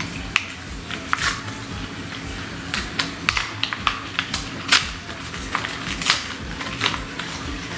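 Irregular clicks and taps of batteries and plastic packaging being handled and opened.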